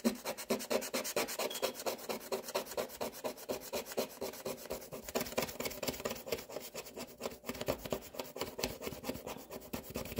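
A coin scraping the gold scratch-off coating from a paper sheet in quick, even back-and-forth strokes.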